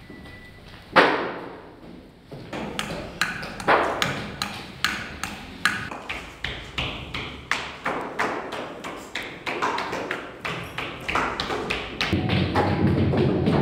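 Irregular sharp taps and knocks, about two or three a second, with one louder knock about a second in. Near the end the sound grows louder and fuller.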